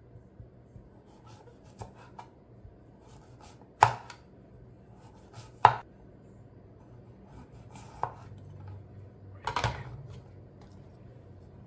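Chef's knife slicing a radish into rounds on a bamboo cutting board: scattered sharp knocks of the blade on the wood, the loudest about four and six seconds in.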